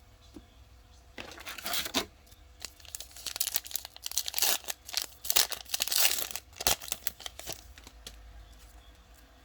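A trading-card pack's foil wrapper being torn open and crinkled by hand, a run of ripping and rustling from about a second in that dies down in the last couple of seconds.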